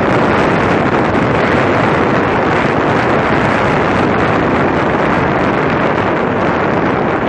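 Steady rush of wind buffeting the microphone of a Yamaha Fazer 150 motorcycle riding at road speed, with the bike's running noise mixed in underneath.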